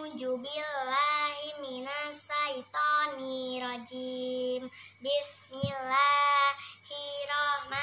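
A young girl chanting Arabic recitation aloud from a Quran-reading book, in a sing-song melody of held, bending notes broken by short pauses for breath.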